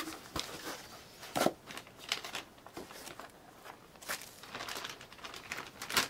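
Plastic packaging crinkling and a cardboard box being handled as a power supply is unpacked, heard as scattered short rustles and taps.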